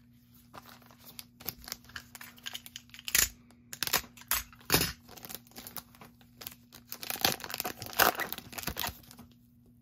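Foil wrapper of a Bowman University football card pack being torn open and crinkled, heard as irregular crackles and rustles with a few louder rips.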